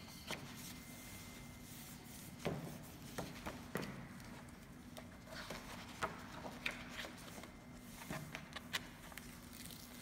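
Pages of a paper brochure being handled and turned on a wooden table: soft, scattered paper rustles, flicks and light taps over a faint steady low hum.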